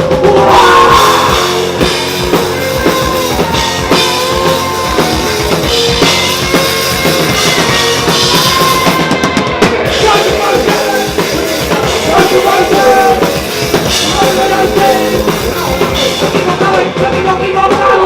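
Loud rock music from a live three-piece band: drum kit prominent under sustained organ and guitar lines.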